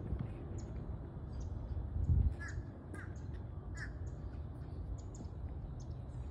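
Birds calling: three short calls between about two and a half and four seconds in, and scattered small high chirps. Under them runs a steady low rumble on the microphone, with a brief louder bump about two seconds in.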